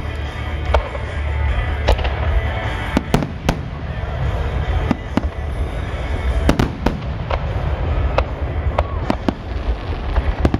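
Aerial fireworks shells bursting in quick succession: a dozen or more sharp bangs, irregularly spaced, over a continuous low rumble.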